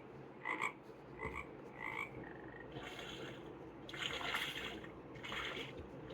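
A frog croaking played from a children's sound book's small speaker: short croaks about two-thirds of a second apart, then water splashing.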